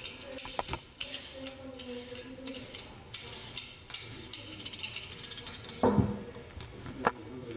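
Stainless steel julienne peeler scraping down a raw carrot in rapid repeated strokes, shaving off thin strips. Near six seconds in, a loud knock as the peeler is set down on the wooden cutting board, and a lighter click about a second later.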